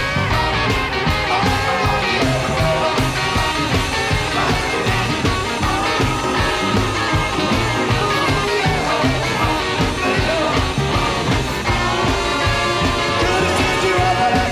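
Rock music with a singing voice, playing steadily throughout.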